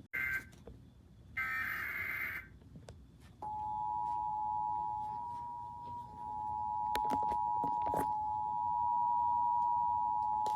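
Emergency Alert System digital data bursts: a brief screech just after the start and a longer, raspy one about a second and a half in. From about three and a half seconds in comes the EAS attention signal, the steady two-tone alarm that announces a new alert, held without change, with a few faint clicks near the middle.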